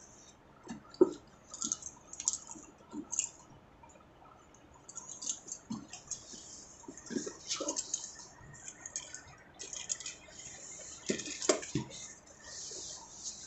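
The zipper of a hard-shell camera carrying case being drawn around its edge in short, irregular rasping pulls, with clicks and knocks from the strap buckle and the case being handled. The pulls come thicker from about halfway on, and the case is open by the end.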